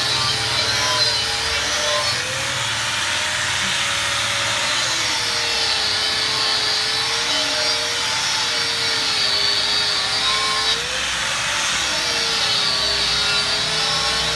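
Handheld angle grinder with a red abrasive disc running against the aluminium bead edge of a scooter rim, smoothing away corrosion left by tyre sealant. Its motor whine sags and recovers several times as the disc is pressed onto the rim and eased off, over a steady hiss of abrasion.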